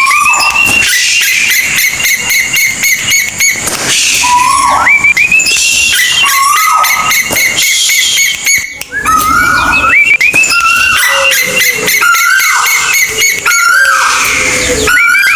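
Loud calls of the bird known in Javanese as kolik tuwu: an irregular series of short notes that sweep up in pitch and then level off or drop, repeating every half second to a second, over a crackling hiss.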